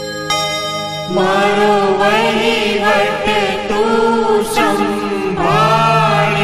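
Gujarati devotional song: held chiming tones give way, about a second in, to singing voices over a steady low drone.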